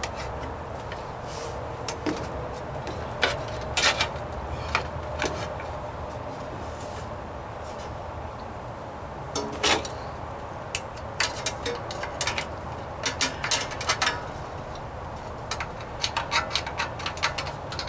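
A hammer striking a steel patch panel held in a vise, tapping a stiffening bead into the sheet metal. Sharp strikes come scattered at first, then in quicker runs of taps in the second half, over a steady low hum.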